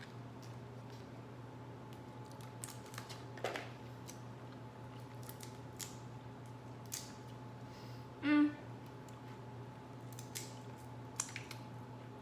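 Seafood shells being cracked and peeled by hand while eating: scattered small cracks and snaps, with a short pitched sound about eight seconds in that is the loudest thing heard, over a steady low background hum.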